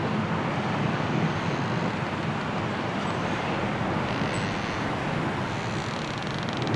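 Strong wind of a snowstorm blowing steadily around the eagle nest, an even rushing noise.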